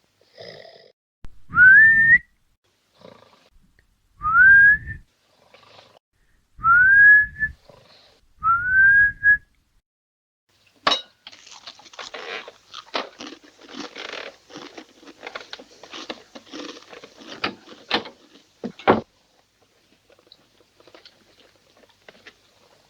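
A man snoring with a whistle: four snores about two and a half seconds apart, each a low rasping rumble that ends in a rising whistle. Halfway through, a sharp click is followed by several seconds of dense crackling and rustling, with one louder click near the end.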